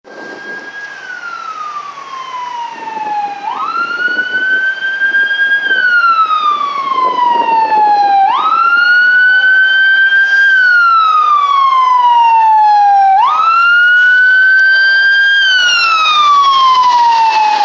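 Fire truck siren wailing in repeating cycles about every five seconds. Each cycle jumps quickly up in pitch, holds, then slides slowly back down. It gets louder over the first several seconds as the truck approaches, then stays loud.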